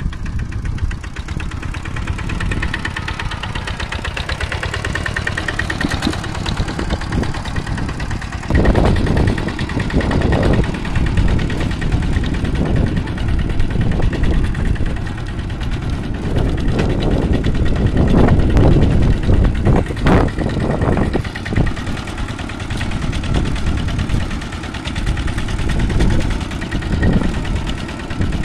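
Kubota two-wheel walking tractor's single-cylinder diesel engine running as the tractor is driven, growing louder and more uneven about a third of the way in.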